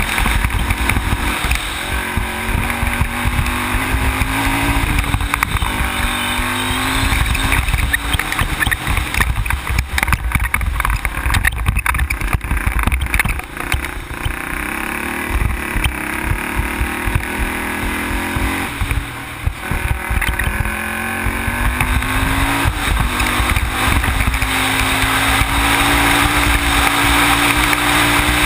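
Sport ATV engine running under way, its pitch rising in several long runs as it accelerates, over a steady rush of wind and road noise on the camera's microphone.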